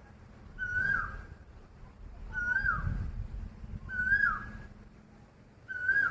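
A bird calling: four loud, whistled notes, each held briefly and then dropping in pitch, repeated about every one and a half seconds.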